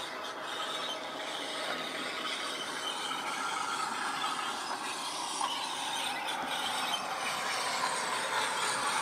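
Hornby OO gauge Class 08 diesel shunter model running on track with its DCC sound decoder playing the 08's engine sound through a bass-enhanced speaker, mixed with the whir and rattle of the model's motor, gears and wheels on the rails. It grows steadily louder as the model approaches.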